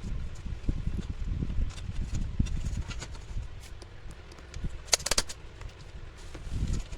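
Handling and tool noise from repair work on an electric cooking pot: low knocking and rubbing with scattered clicks, and a quick run of sharp clicks about five seconds in.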